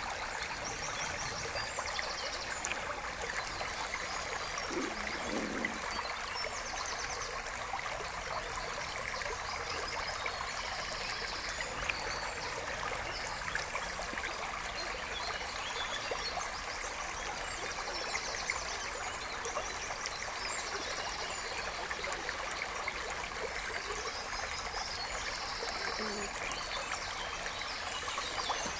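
A brook running steadily, an even rush of water. Short high trills sit over it every few seconds.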